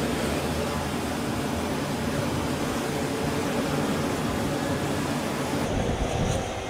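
Steady loud roar of aircraft engines on a carrier flight deck, an even noise without any clear pitch. Near the end it changes to a lower rumble.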